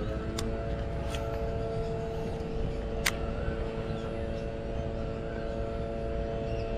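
A steady motor hum that rises in pitch as it comes up to speed, then holds level, over low wind rumble, with a few sharp clicks.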